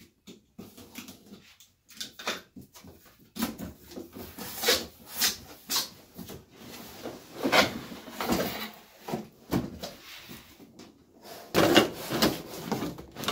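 Corrugated cardboard box being opened by hand: flaps pried and pulled apart, cardboard rustling and scraping, with irregular knocks as the box is handled on the bench. The handling comes in short clusters, busiest in the middle and near the end.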